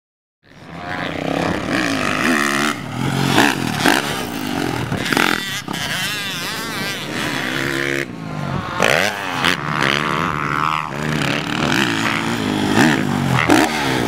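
Motocross dirt bike engine revving hard, its pitch climbing and dropping again and again as the rider works the throttle. It starts about half a second in, and the sound changes abruptly about eight seconds in where one run cuts to the next.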